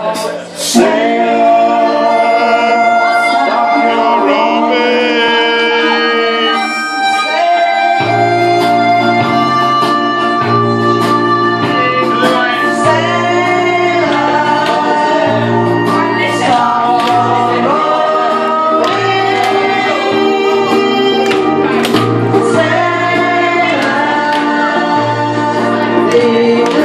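Music with singing and instruments, steady throughout; a pulsing bass line comes in about eight seconds in.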